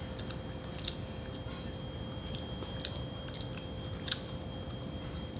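A person chewing a mouthful of rice, with scattered small wet clicks.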